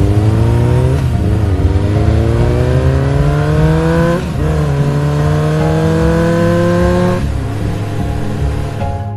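A motor vehicle engine accelerating hard through the gears: its pitch climbs steadily, drops back at a gear change about a second in and again about four seconds in, then climbs once more and cuts off near seven seconds, over a steady low hum.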